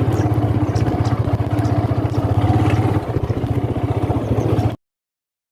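A vehicle's engine running steadily with a rapid low throb. It cuts off abruptly near the end into dead silence.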